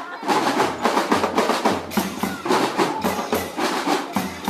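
Marching drum band percussion playing, with snare and other drums beating dense, rapid strokes.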